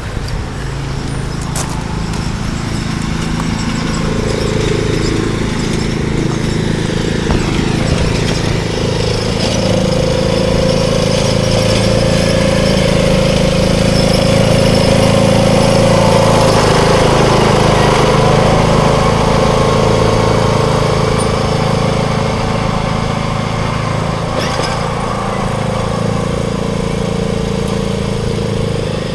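John Deere D105 riding lawn tractor's engine running steadily as it drives past. It grows louder as the tractor approaches and eases off slightly as it moves away.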